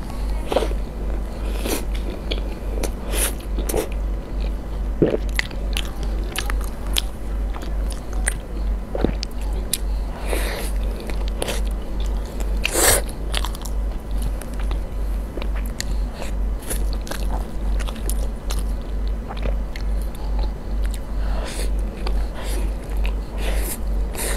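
Close-miked eating: biting into and chewing mouthfuls of soft cream cake topped with meat floss, with many short wet mouth clicks and smacks, the loudest about two-thirds of the way through. A low, evenly pulsing beat runs underneath.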